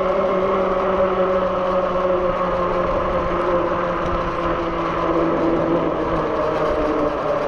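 Zugo electric bike riding at speed: a steady humming whir from its motor and tyres on the road, dipping slightly in pitch near the end.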